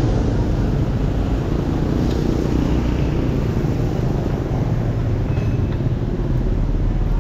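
Steady rush of road traffic and wind noise while cycling along a road, with no single event standing out.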